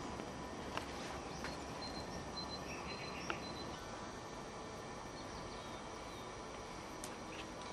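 Steady outdoor background noise with a few faint, short clicks.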